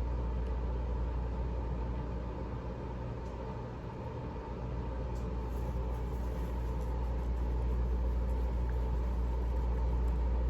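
Steady low mechanical hum over a faint hiss, dipping slightly in level a few seconds in.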